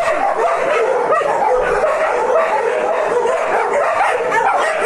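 A pack of many dogs barking all at once in a dense, unbroken chorus of overlapping voices: alarm barking set off by someone passing by.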